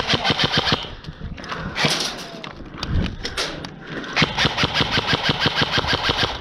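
Airsoft gun fire in rapid full-auto bursts, about a dozen shots a second: several short bursts, then a longer burst of about two seconds near the end.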